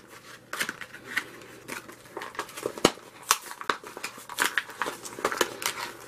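Zippo lighter's cardboard and plastic retail packaging being handled and opened by hand: irregular crinkling and rustling with many sharp clicks and snaps.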